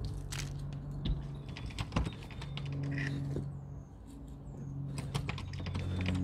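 Hands rummaging through soil in a potato grow bag, making irregular small clicks and rustles as compost and potatoes are moved about. Low held tones run underneath.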